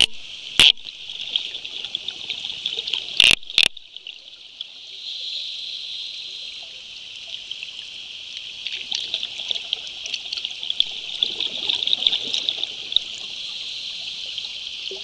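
Underwater ambience picked up through a dive camera, a steady fizzing crackle with a few sharp clicks in the first four seconds and some low burbling later on.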